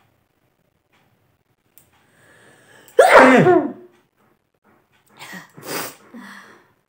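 A woman's sneeze about three seconds in, set off by tickling the inside of her nose with a blade of long grass. A faint in-breath comes before it, and after it come a few short breathy noises.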